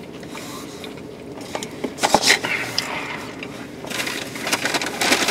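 Quiet handling noises in a car cabin: a few soft clicks about two seconds in, then a drink sucked through a straw from a fast-food soda cup near the end.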